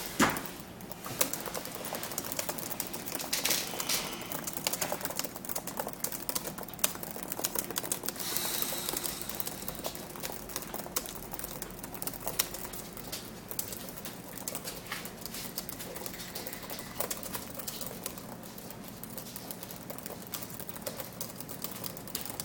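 Very fast typing on a computer keyboard: a dense, unbroken stream of key clicks, a typing speed of about 128 words a minute.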